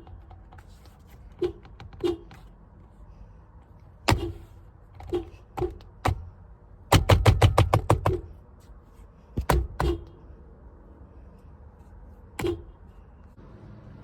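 Scattered sharp knocks and clicks. Near the middle comes a quick run of about a dozen at roughly ten a second, lasting about a second.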